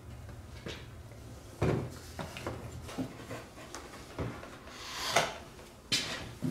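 Plastic fuel tank of a Kawasaki Prairie 400 ATV being fitted onto the frame: a series of separate knocks and scrapes of the tank against the frame, with one longer scrape near the end.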